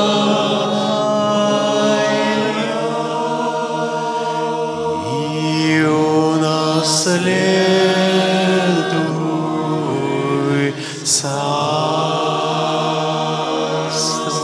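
Slow sung prayer chant: voices drawing out long, gliding melismatic notes over a steady low held note, with a few sibilant consonants as words are sung.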